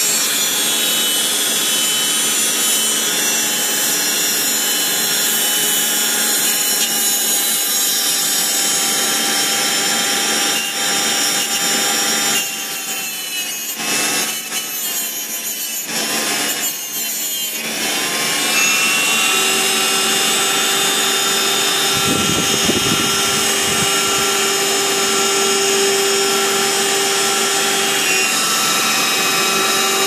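Dremel rotary tool with a cutoff wheel running at high speed, grinding a flat edge onto a typewriter's steel margin rack to cure overbanking, where the margin stop hops over the rack. The motor's whine sags and climbs back several times in the middle as the wheel bears on the metal.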